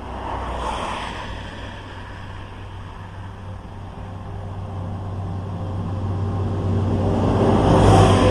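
A motor vehicle's engine hum with road noise, growing steadily louder over several seconds to its loudest about eight seconds in, then starting to fade as it passes.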